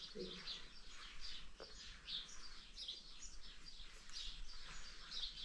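Small birds chirping: a steady run of short, high chirps that each fall in pitch, about two or three a second.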